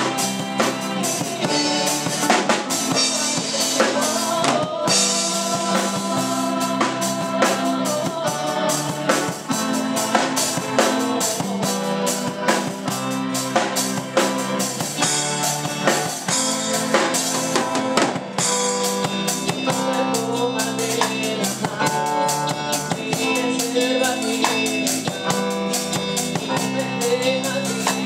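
A song played by a band: a full drum kit with kick, snare and rimshots keeps a steady beat under sustained pitched instruments.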